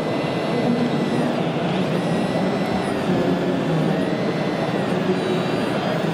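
Electric whine of an RC model excavator's motors, its pitch dipping and rising every couple of seconds as the machine crawls and works, over steady background crowd noise.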